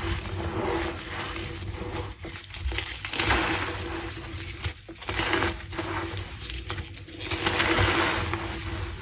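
Squeaky sound of pasted, re-formed gym chalk being crushed, coming in repeated swells every second or two with a few sharp crackles.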